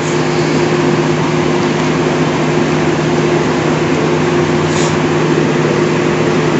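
Passenger train standing at a platform with its machinery running: a steady hum made of a constant low drone over an even rushing noise, unchanging throughout.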